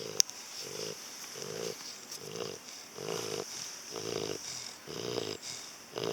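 St. Bernard dog snoring in a steady rhythm, a little more than one snore a second, with a sharp click just after the start.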